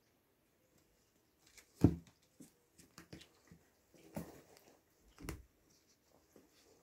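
Soft thumps, rustling and small clicks as Oriental kittens and a cat wrestle on a cushioned cat bed. The loudest thump comes about two seconds in, with two more near four and five seconds. There is no meowing.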